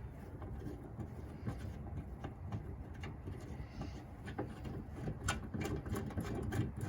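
Light scattered clicks and taps of an aftermarket car antenna mast being screwed by hand onto its threaded base on the truck, a few sharper clicks in the last couple of seconds, over a low steady background rumble.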